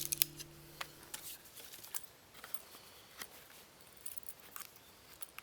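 Scattered light clicks and small knocks of split wooden stick pieces being handled, a few sharper ones in the first half second.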